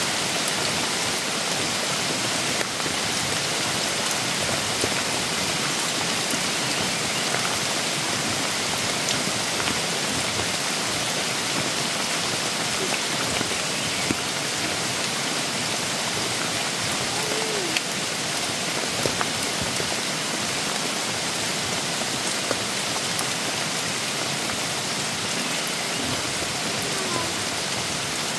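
Steady rain falling in bamboo forest: an even hiss with scattered louder drops ticking here and there.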